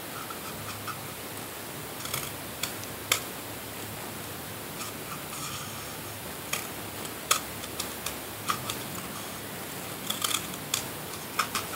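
Scissors cutting slits: scattered short, sharp snips and clicks, a few at a time with a small cluster near the end, over a steady background hiss.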